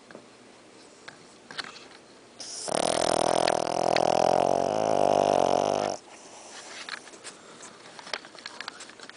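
Shih Tzu snoring loudly in its sleep: one long, rasping snore about two and a half seconds in, lasting some three and a half seconds and cutting off abruptly, with quiet breathing and faint clicks around it.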